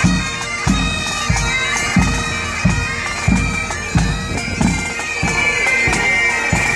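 Marching pipe band of Great Highland bagpipes playing a tune over their steady drone, with a bass drum beating about every two-thirds of a second.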